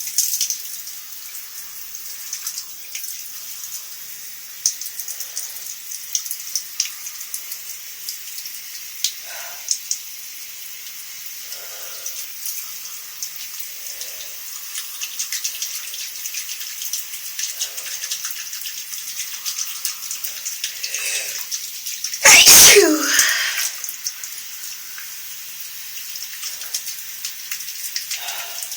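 Shower water hissing steadily, with one loud human sneeze about three quarters of the way through that falls in pitch as it trails off: a sneeze from a person with a slight cold.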